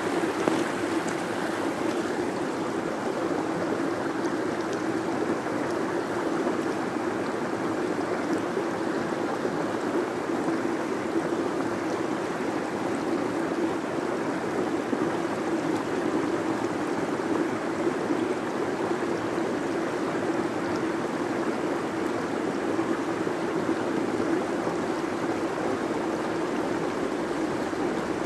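Shallow stony creek flowing and spilling over a small weir: a steady rush of water.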